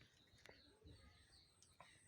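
Near silence with a few faint clicks of a cat chewing its food, and faint high chirps in the background.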